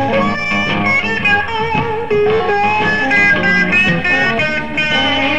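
Live 1960s recording of an electric blues band: a lead electric guitar plays single-note lines with bent, wavering notes over bass and drums.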